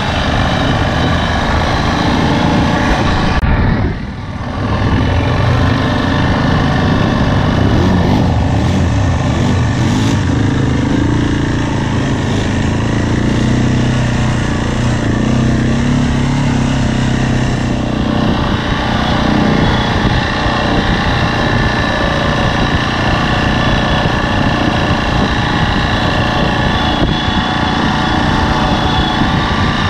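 ATV engine running steadily while riding, close to the microphone. It dips briefly about four seconds in.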